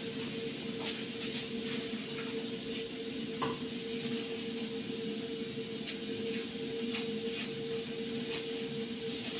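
A steady hiss with a constant hum under it, from the stove, with a few light clicks and rustles of kitchen things being handled.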